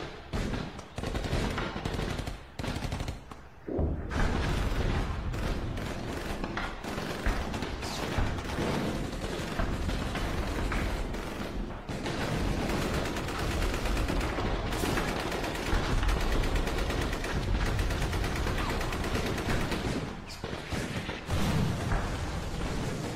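Heavy gunfire: rapid, densely packed shots of automatic weapons. There is a short lull about three seconds in, then near-continuous fire.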